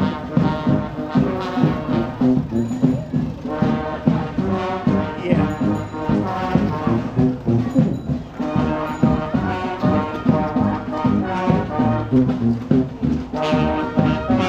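Street band playing a brass-led tune, horns carrying the melody over a steady drum beat.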